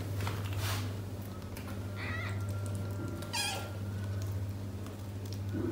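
Newborn kittens mewing while nursing: two short, high-pitched mews about two and three and a half seconds in, the second wavering, over a steady low hum.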